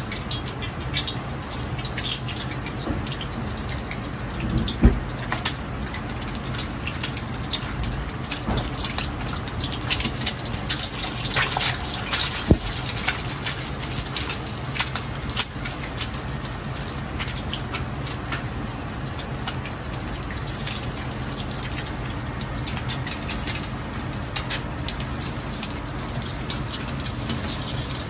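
Kitchen sounds: a steady watery rushing noise with scattered clicks and clatter over a low hum.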